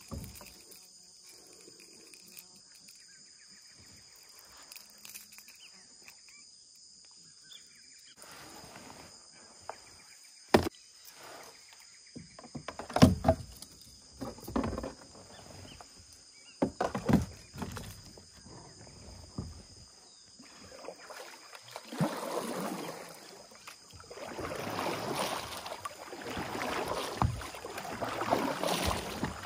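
A steady high insect drone, with a run of sharp knocks on a kayak from about ten seconds in, then paddle strokes swishing through the water in swells every two to three seconds over the last part.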